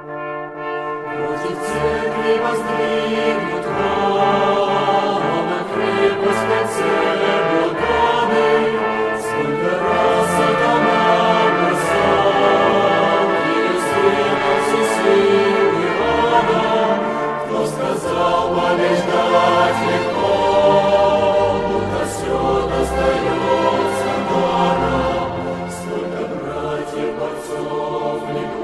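Music: a choir singing slow, sustained chords, accompanied by brass instruments.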